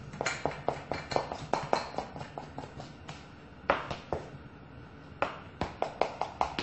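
Metal spoon beating buttercream in a mixing bowl: rapid, uneven clinks and taps against the bowl, about four or five a second, with a short pause about three seconds in.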